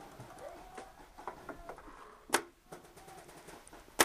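Two sharp shots from a Planet Eclipse Etek 4 paintball marker, one about two seconds in and a louder one at the very end.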